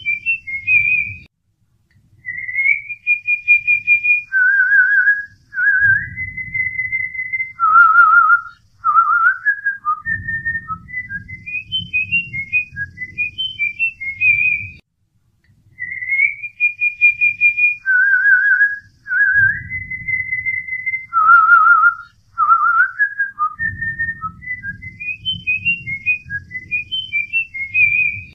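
A whistled tune of clear, high notes, some held steady and some warbling, with the same phrase repeating about every fourteen seconds.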